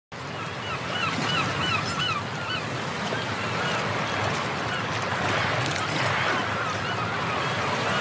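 Birds calling in short, rising-and-falling honking cries, a quick run of them in the first couple of seconds and then scattered calls, over a steady rushing noise like wind or surf.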